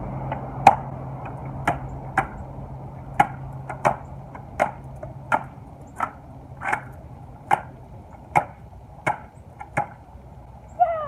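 Skateboard rolling, its wheels giving a sharp clack about every half to three-quarters of a second, over a low rolling hum that fades out about two-thirds of the way through.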